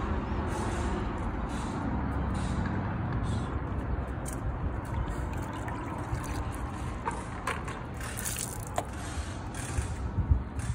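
Spashan glass coating sprayed from a bottle onto a van's side window, a brief hiss about eight seconds in, then a cloth starting to wipe across the glass near the end, over a steady low rumble.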